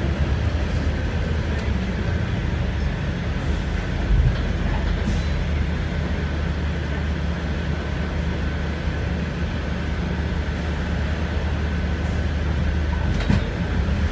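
Steady low rumble of a moving bus heard from inside the cabin, with a faint high whine running through it and a brief knock about four seconds in and again near the end.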